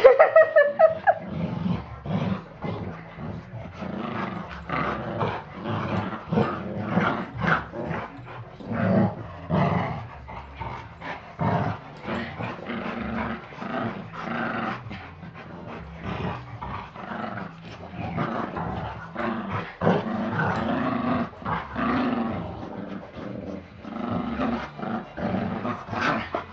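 A Chihuahua and a larger dog play-fighting, with continuous growling and snarling, and a high falling yelp right at the start.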